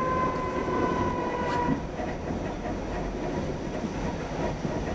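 A30B tram running at speed, heard from inside the passenger cabin: a steady rumble of wheels on the rails. A high whine sinks slightly in pitch and fades out about two seconds in.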